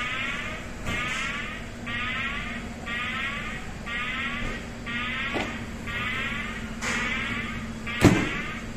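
Electronic warning alarm pulsing about once a second, each pulse a warbling tone, over a steady low hum. A sharp clunk comes near the end.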